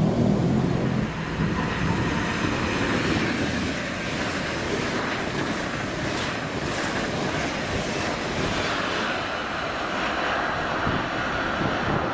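An electric train running past on the line: a steady rumble of wheels on rail, with a low hum that dies away about a second in.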